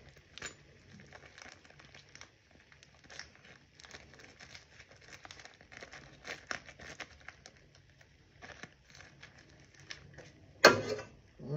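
Plastic wrap crinkling as a round of queso fresco is crumbled out of it into a pan, heard as faint, scattered small crackles. A sudden loud sound comes near the end.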